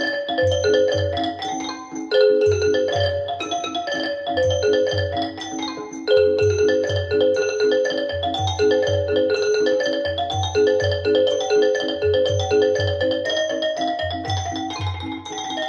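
Music played through Wilson Audio WATT/Puppy 7 loudspeakers: a rippling instrumental piece of short, quick pitched notes in repeating rising and falling figures over a low bass note pulsing about twice a second.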